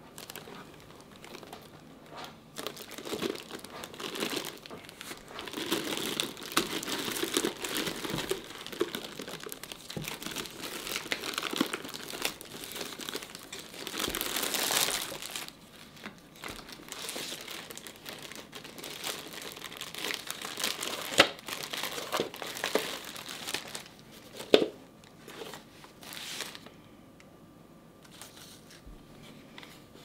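Clear plastic film crinkling and tearing as it is stripped off a new wooden steamer basket, with a couple of sharp clicks in the last third; the crinkling stops a few seconds before the end.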